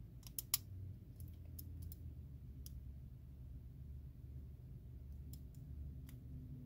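Lock pick working the pins inside a Schlage mortise cylinder under tension: small sharp metallic clicks, a quick cluster in the first second and then scattered single clicks, over a faint low hum.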